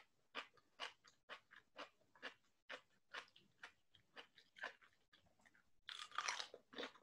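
Crunchy chewing of raw cucumber, about two crisp crunches a second, then a louder crunching bite into the whole cucumber about six seconds in.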